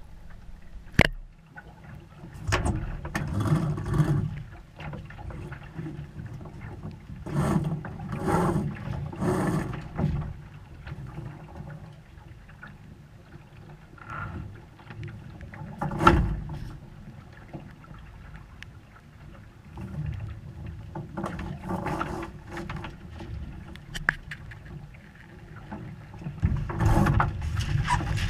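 Sailing noise aboard a small sailboat: water and wind rushing past the hull in uneven surges every few seconds, with a few sharp knocks, the loudest about halfway through.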